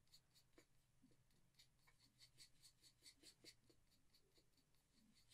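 Very faint, soft scratching of a paintbrush stirring pink paint and water in a plastic palette well, in quick repeated strokes a few times a second.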